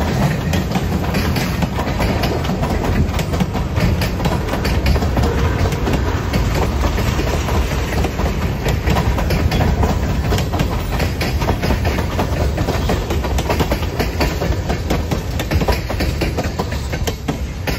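Freight cars rolling past: a steady rumble of steel wheels on rail, with rapid clicks of the wheels passing over rail joints. The sound drops off near the end as the last tank car goes by.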